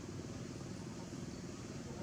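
Steady background noise: a low rumble with a hiss over it and no distinct event.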